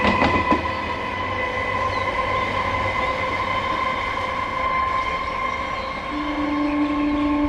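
An Indian Railways electric train running past: its wheels click over rail joints in the first half-second, then a steady high tone carries on as it runs. About six seconds in, a locomotive horn sounds one steady note for about two seconds.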